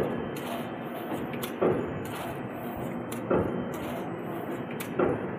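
Heavy rapier wire mesh loom running, a loud knock about every second and a half as the reed beats each weft wire into the mesh, over a steady mechanical running noise with lighter clicks between the knocks.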